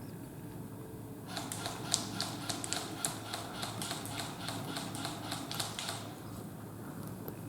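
A rapid run of sharp mechanical clicks, several a second, starting about a second in and stopping about six seconds in.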